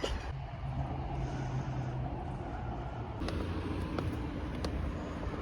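A steady low engine rumble with a held low hum in the first two seconds, and a few light clicks in the second half.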